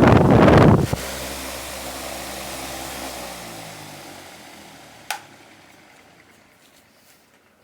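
A loud rushing machine noise cuts off just under a second in. A motor hum is left behind, slowly dropping in pitch and fading away over the next few seconds, as a motor or fan spins down after being switched off. A single sharp click comes about five seconds in.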